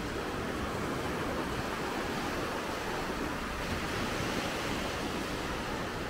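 Small Mediterranean waves breaking and washing up onto a sandy beach: a steady surf noise, swelling a little in the middle.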